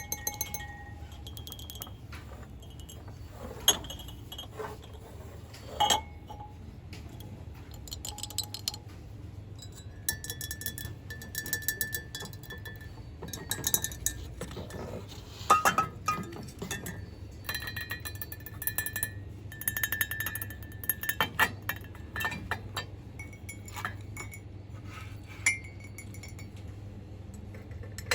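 Irregular ASMR tapping and clinking on small hard objects, some taps leaving short ringing tones. A steady low hum runs underneath.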